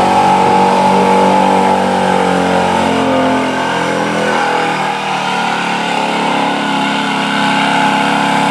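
A 1979 Ford F-250's gas engine running hard at high revs under full load, pulling a weight-transfer sled. The engine note holds steady, dropping a little in level about halfway through before carrying on.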